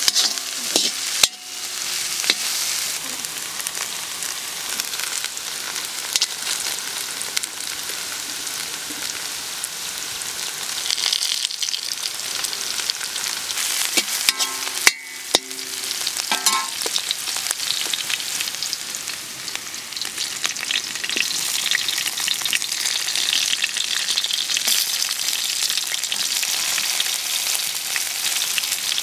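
Shallots, garlic and dried chillies sizzling steadily in hot oil in a large iron kadai, with a steel skimmer scraping and knocking against the pan as they are stirred. The sizzle grows louder in the last third.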